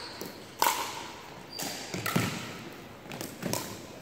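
Pickleball paddles hitting a plastic ball during a rally: four or five sharp pocks about a second apart, the loudest just over half a second in, echoing in a large gym.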